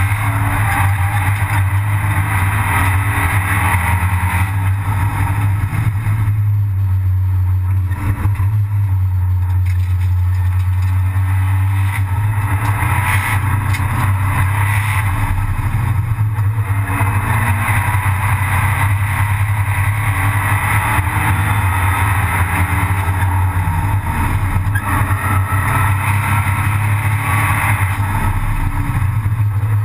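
Abarth 500 Assetto Corse race car heard from inside its stripped cabin under a steady heavy low rumble. Its turbocharged four-cylinder engine runs hard at racing speed, swelling and easing as the driver comes off and back on the throttle for corners.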